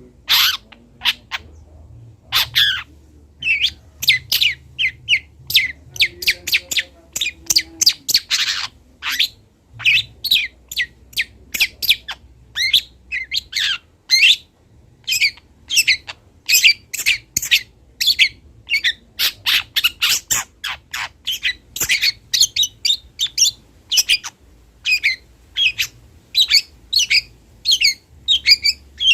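Young long-tailed shrike (cendet) singing: a fast, unbroken run of short, sharp chirps and squawks, several a second.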